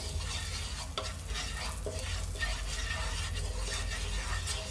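Spice powders frying in oil in a nonstick pan over a low flame, with a steady sizzle while a spatula stirs and scrapes them, knocking lightly against the pan a few times.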